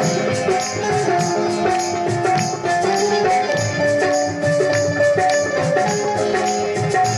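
Instrumental passage of a Hindu devotional bhajan: a harmonium plays a stepping melody of held notes over a hand drum and small hand cymbals keeping a steady, jingly beat.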